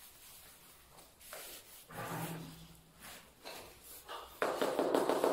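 Tile-laying work on a cement floor: light scattered knocks and scrapes, then about four seconds in a sudden loud, rapid crackling scrape of a trowel working tile adhesive.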